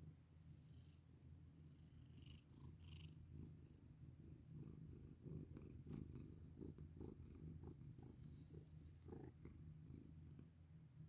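Black domestic cat purring steadily and quietly while being stroked, with a scatter of soft short clicks in the second half as its face comes right up to the microphone.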